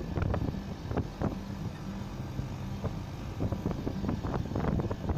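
Split AC outdoor unit running with its newly fitted 1.5-ton compressor: a steady low hum, with wind on the microphone and irregular short knocks and rustles over it.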